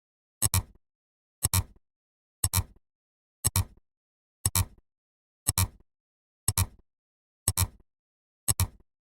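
Sharp double clicks as a sound effect, repeating evenly about once a second, nine times.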